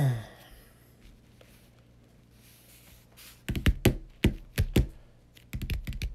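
A knock dies away at the start; after a quiet stretch come rapid, irregular taps and clicks in two clusters, from about three and a half seconds in and again near the end.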